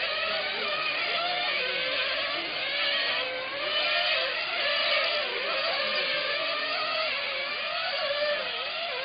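Several 1/10-scale nitro (internal-combustion) on-road racing car engines screaming together, their overlapping high whines rising and falling as the cars accelerate down the straight and lift for the corners.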